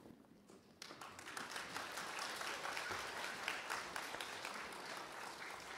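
Audience applauding, starting abruptly about a second in and carrying on as a dense patter of many hands clapping.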